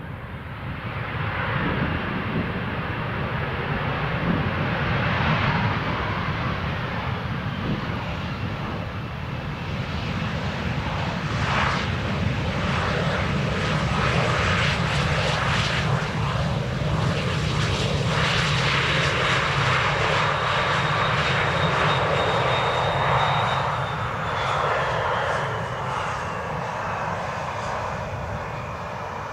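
Jet airliner's turbofan engines running as the plane arrives to land, a loud steady rumble with a high whine that falls in pitch near the end as the aircraft passes.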